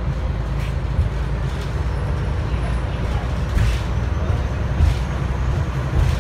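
Inside a 2000 Neoplan AN440A transit bus under way: a steady low drone of engine and road noise, with a few light rattles from the body.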